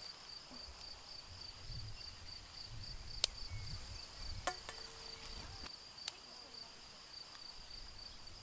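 A steady, rapidly pulsing high insect trill, with a few sharp clicks as pea pods are dropped into a stainless steel bowl; one drop leaves the bowl ringing for about a second.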